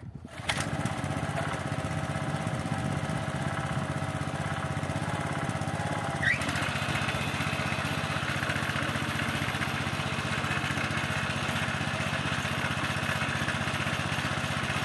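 Small single-cylinder petrol engine of a walk-behind cultivator (motoblock) catching about half a second in and running steadily. About six seconds in a short squeal sounds and the engine runs harder and rougher as the tines dig into the soil.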